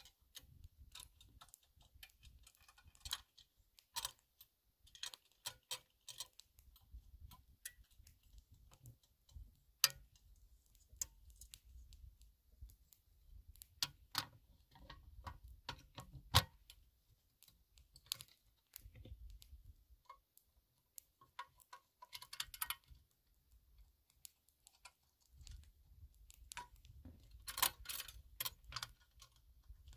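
Scattered small clicks and taps of hands handling the ground-glass back of an 8x10 large format view camera, with sharper clicks about ten and sixteen seconds in and quick clusters of clicks near the end. A low rumble runs underneath.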